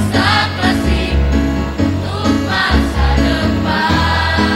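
Mixed choir of teenage students singing together over instrumental accompaniment with a steady bass line.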